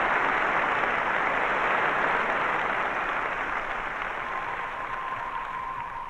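Audience applauding, fading down steadily. About four seconds in, a single steady high tone comes in: the start of music, with a theremin-like sound.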